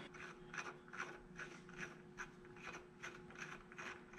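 Steel head stud turned by hand into a homemade steel thread insert in a BMW M54 engine block, dry-fitted: a faint string of small metallic ticks and scrapes from the threads, a few a second.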